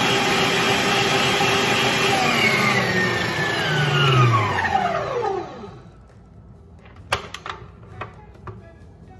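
Electric stand mixer with a wire whisk running at speed through whipped egg-white batter, then switched off: its motor whine falls in pitch and winds down over about three seconds. A few sharp clicks follow as the mixer head is tilted up.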